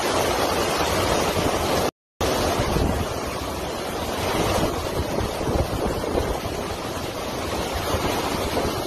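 Hurricane wind and heavy rain blowing against the microphone: a steady rushing noise that cuts out for a moment about two seconds in.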